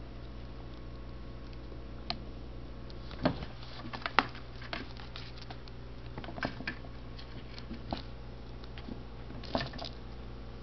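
A kitten batting and kicking a toy mouse on a string across a wooden floor: irregular taps, scuffs and knocks, loudest about three and four seconds in and again near the end, over a steady low hum.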